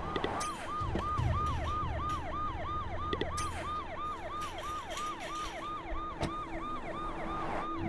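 Cartoon ambulance siren sounding a fast, repeating wail, about three and a half cycles a second, each rising sharply and then falling away. A low vehicle rumble sits under it in the first couple of seconds.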